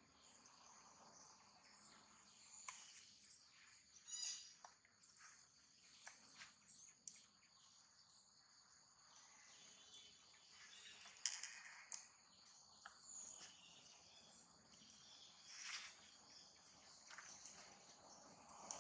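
Faint outdoor ambience: a steady high-pitched insect hum, with scattered short clicks and rustles, a few of them louder.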